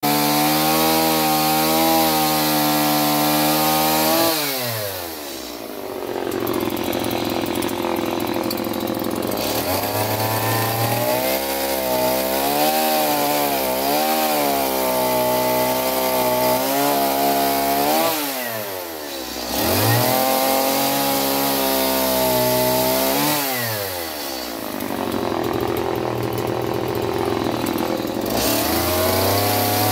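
Two-stroke gasoline chainsaw cutting wood at high revs, its pitch wavering under load. Three times the throttle is let off and the engine falls to a lower idle, then revs back up into the cut.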